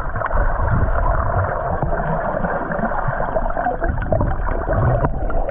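Muffled underwater rush and gurgling of moving water, picked up by an action camera held below the surface. The sound is dull, with no treble, and runs on steadily with low rumbles.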